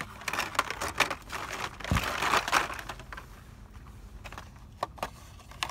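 Plastic-and-cardboard blister packs of Hot Wheels cars crinkling and clicking as they are flipped through by hand on a store's peg hooks, busiest about two seconds in.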